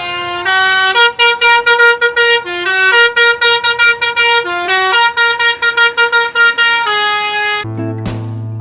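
Telolet basuri bus horn, a multi-tone air horn, playing a tune. It opens on a held chord, breaks into a fast run of short honks that jump between pitches, and ends on another held chord.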